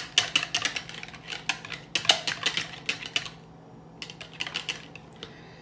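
Wire whisk beating raw eggs in a plastic measuring jug: fast clicking and tapping of the wires against the jug, stopping about three seconds in, then a shorter run of clicks a moment later.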